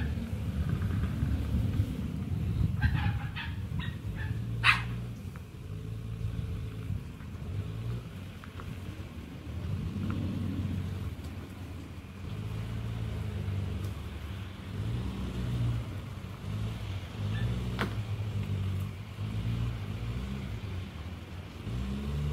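A motorhome's diesel engine running at low revs as the motorhome is manoeuvred slowly, its note rising and falling a few times. A few short, sharp high sounds come about three to five seconds in.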